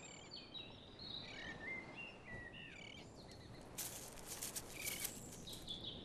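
Faint outdoor ambience of small birds chirping: short whistled notes that slide up and down, repeated throughout, with a brief crackle about four seconds in.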